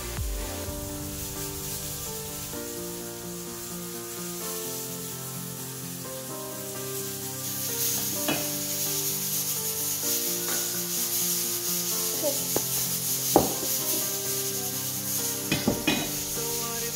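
A metal spoon stirring and scraping a dry almond-flour cookie mixture in a ceramic bowl. The scraping grows louder about halfway through, with a few sharp clinks of spoon on bowl, one of them louder near the end. Soft background music with sustained notes plays throughout.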